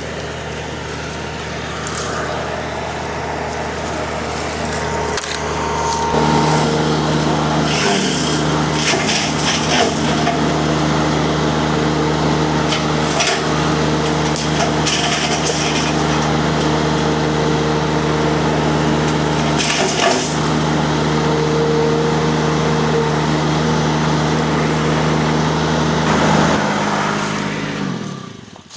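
Mini skid steer's diesel engine running a hydraulic disc mulcher that is chewing into wood, with repeated sharp cracks and splintering. About 6 s in it comes up to a heavier, louder working pitch. Near the end the pitch drops and the machine winds down to a stop as a log too big for the mulcher wedges in it.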